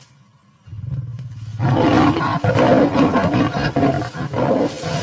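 Lionesses fighting: a low growl starts just under a second in and breaks into loud, continuous snarling about a second later.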